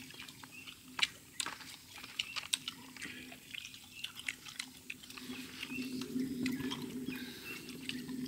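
Knives working through a monkey carcass: scattered sharp clicks and snaps of blades on meat and bone, irregular and unevenly spaced, over a faint low hum.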